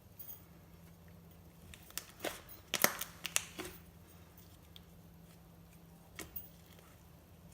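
Glossy slime being squeezed and poked by hand, giving a cluster of sharp clicks and pops about two to four seconds in and another pop near six seconds.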